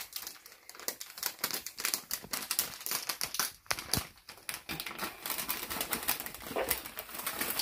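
Red gift-wrapping paper crinkling and tearing as a present is unwrapped by hand: a rapid, irregular run of crackles and rips.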